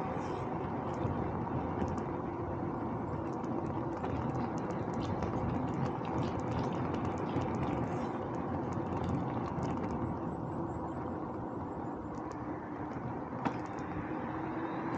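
Steady road and wind noise from a bicycle ride: tyres on the road and air rushing past the camera's microphone. A single sharp click comes about thirteen and a half seconds in.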